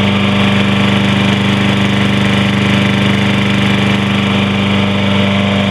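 Toro Recycler lawn mower's 190cc single-cylinder Briggs & Stratton engine running at a steady speed, warmed up after about 15 minutes of running.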